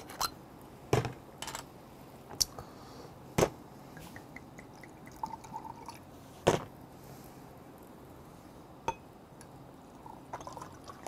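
A green glass soju bottle being twisted open and handled, with a few sharp knocks of glass bottle and drinking glass against the table. Near the end, soju pours into a glass.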